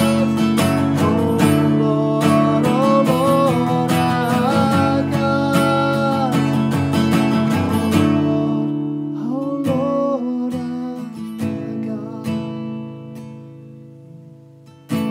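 A man singing with a strummed acoustic guitar. After about eight seconds the singing stops and the guitar thins out and fades, with one more short sung phrase along the way, before a fresh strum right at the end.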